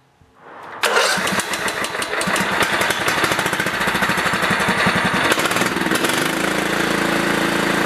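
Kohler Command 15.5 hp lawn tractor engine running, its new ignition module fitted. It comes in abruptly about a second in and settles to a steadier, lower note about six seconds in.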